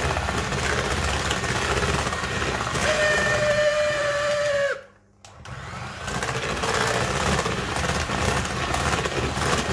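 Old electric hand mixer running, its beaters whisking a thick quark cake batter in a plastic bowl, with a steady motor whine. About halfway through the whine sags in pitch and the sound breaks off for a moment, then the mixer runs on.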